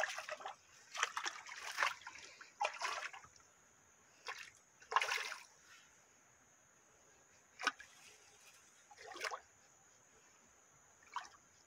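A hooked traíra thrashing on the line at the water's surface: a series of short splashes, about eight of them, a second or two apart, the loudest at the start.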